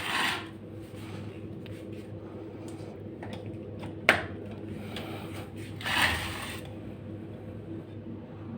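Ceiling fan motor running on UPS/IPS inverter power with a steady electrical hum, the noise such fans make on inverter supply. A sharp click comes about four seconds in, and brief rustling bursts come at the start and about six seconds in.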